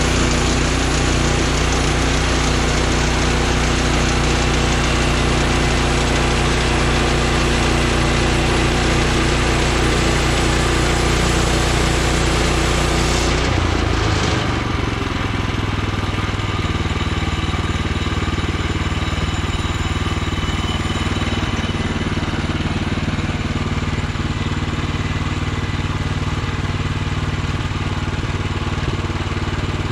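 Portable bandsaw sawmill's gasoline engine running steadily, with the hiss of the band blade. About halfway through, the pitch and the hiss drop and it runs on a little quieter at a lower note.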